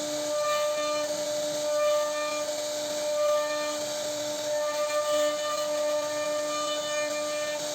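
CNC router spindle running with a steady high whine over a broad hiss as the bit cuts into wood; some of its overtones come and go as the load changes.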